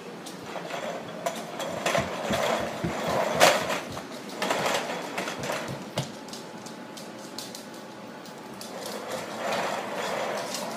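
Plastic baby walker rolling on a hardwood floor: its wheels rumble and clatter, with scattered knocks. It runs in two spells, over the first half and again near the end.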